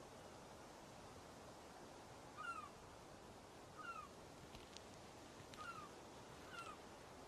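Faint short animal calls, each falling slightly in pitch, heard four times about a second or so apart over a quiet hiss.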